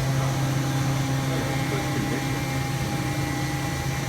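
2009 Hurco VM10 CNC vertical machining center running under power: a steady hum with a strong low drone and a fainter, higher steady whine.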